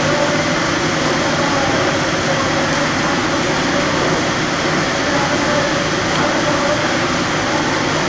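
Polypropylene baler twine extrusion line running, giving a steady, even machine noise with a faint hum.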